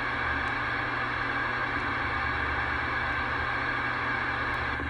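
CB radio static: a steady hiss from the receiver's speaker with nobody transmitting.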